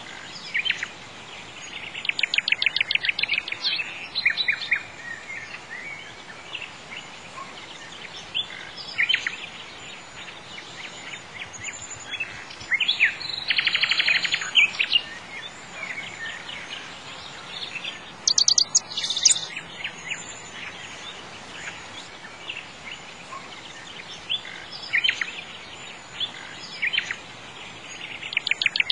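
Songbirds chirping and singing in bursts of rapid trilled notes every few seconds, over a steady background hiss.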